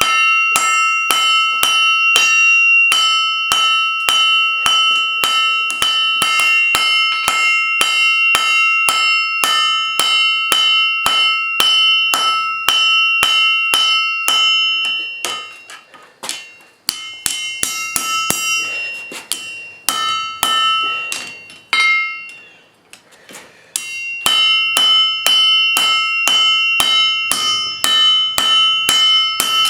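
Blacksmith's hammer striking steel on an anvil in a steady run of about three blows a second, each blow ringing brightly. Past the middle the blows thin out to a few scattered strikes for several seconds, then the steady hammering resumes.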